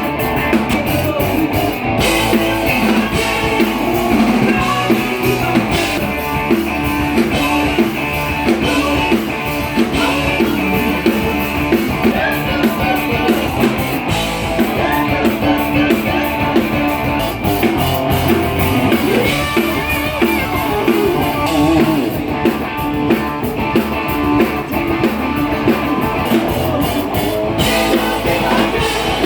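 Live band playing a rock song, with guitar and drum kit carrying a steady beat.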